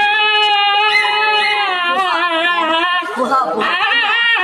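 Husky howling in long, drawn-out 'singing' notes whose pitch wavers up and down, with a short break about three seconds in before another held note. It is howling in protest at the vet, who has only been getting ready and has not started any treatment.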